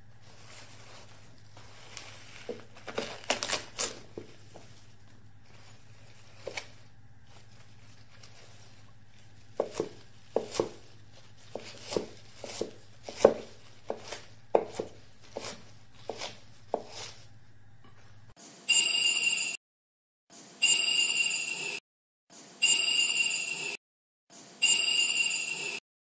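Kitchen knife chopping tomato and green chilli on a wooden cutting board: a few scattered taps, then a steady run of strokes. From about 18 seconds in, a bright ringing chime phrase repeats about every two seconds.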